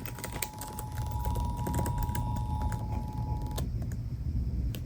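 Emergency Alert System attention signal, a steady pair of tones, coming faintly through an FM radio receiver and stopping about three and a half seconds in. Irregular clicking and a low rumble run underneath.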